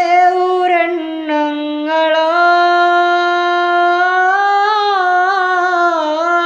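A young man singing a madhaha unaccompanied, one voice alone: a few shorter notes, then one long held note from about two seconds in that wavers near the end.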